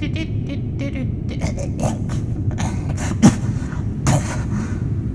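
A voice making a string of short, clipped nonsense mouth sounds, beatbox-like, over a steady low rumble.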